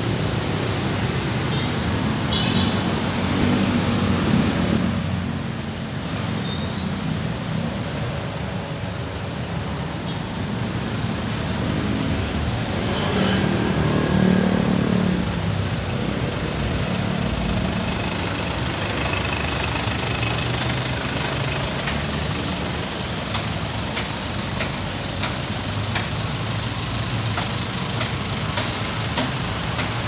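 Busy road traffic close by: cars, vans and motorcycles passing with engines running and tyres on the road, a steady rumble. One louder vehicle passes about halfway through.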